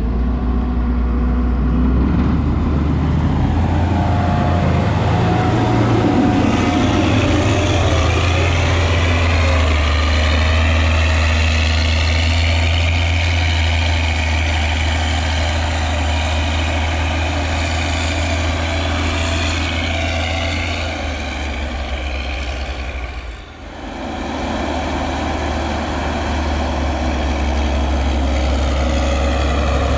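Leitner LH500 snow groomer's MAN D2866 six-cylinder diesel working under load while pushing chopped maize silage: a steady low engine drone with a higher whine that climbs and dips in pitch. The sound drops briefly about two-thirds of the way through, then the engine carries on.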